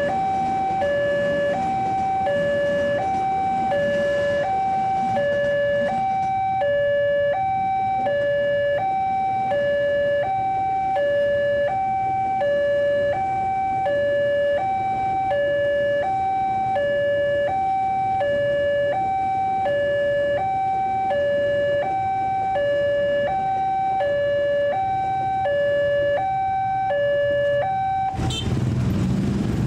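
Railway level-crossing warning alarm sounding an electronic two-tone signal, a low and a high tone alternating evenly, about one pair every one and a half seconds, while the crossing is closed for a passing train. It cuts off suddenly near the end as the crossing reopens, and road-traffic noise rises in its place.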